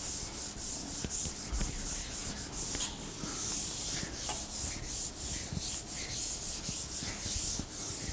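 A board eraser wiped back and forth across a board, rubbing off marker writing in quick repeated strokes.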